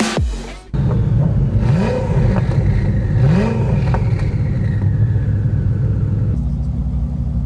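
Koenigsegg supercar engines idling, with two short throttle blips about two and three and a half seconds in. The engine sound settles to a steady idle near the end.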